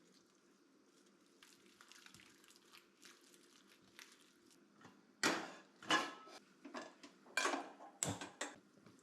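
Kitchen utensils and dishes knocking together: faint handling at first, then a run of about six sharp clatters in the second half.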